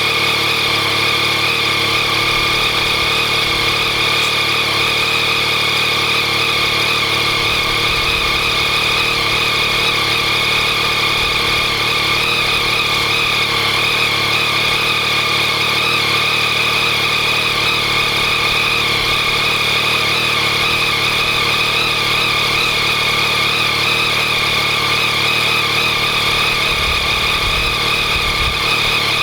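Yamaha MT-09's 847 cc inline three-cylinder engine idling steadily while warming up from a cold start, with a rattling, ticking noise from the engine that persists even though the updated cam chain tensioner has been fitted.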